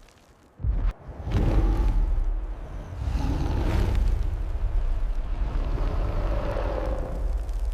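Deep, loud rumbling from a cinematic sound-effect track, with heavy booms about half a second and a second and a half in, then a sustained low rumble with noisy swells.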